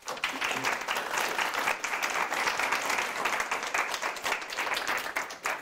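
Audience applauding: many hands clapping in a dense, steady patter that starts at once and tapers off near the end.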